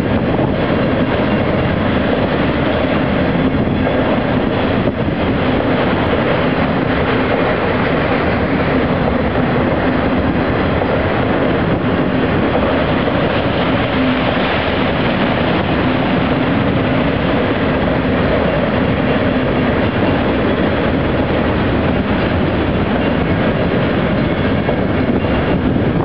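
Freight train of autorack cars rolling past, a steady noise of wheels running on the rails.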